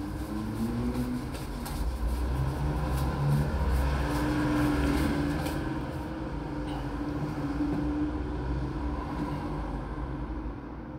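A motor vehicle engine running, a steady low rumble that swells a little around the middle and eases off toward the end.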